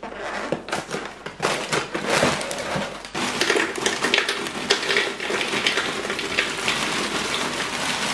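Chocolate-chip wheat biscuit cereal bites poured from a plastic bag into a clear plastic cereal dispenser: a dense, continuous rattling patter, with the bag crinkling. Before the pour, in the first second and a half, there are a few separate knocks and rustles from the box and bag being opened.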